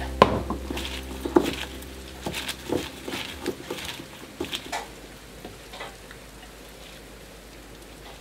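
Gloved hand tossing seasoned chives and sliced onion in a glass bowl: irregular wet squishing and rustling with a few sharp clicks, dying away about six seconds in.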